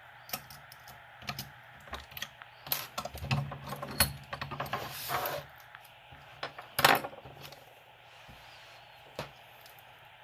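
Lock picks and a tension wrench clicking and rattling against the lock as it is worked by hand: irregular small metal clicks, a brief scrape in the middle, and a sharper clack about seven seconds in.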